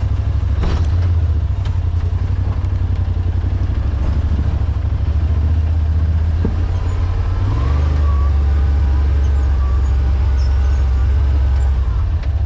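Side-by-side UTV engine running steadily under way on a dirt trail, its drone stepping up about halfway through.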